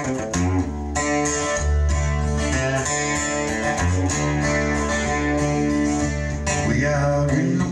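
Recorded music with a heavy bass line playing back through homemade flat-panel speakers, Dayton sound exciters driving 12-inch aluminum sheets, with a passive subwoofer underneath.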